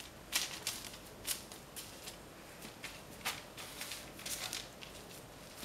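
Faint rustling and crinkling of baking paper as hands press and shape a raw ground-meat loaf on it, in a scatter of short, soft crackles.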